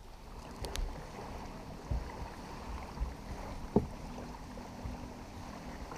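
Steady water and wind noise with scattered low bumps and a sharp knock near the middle, as people move about in a small open boat on a lake.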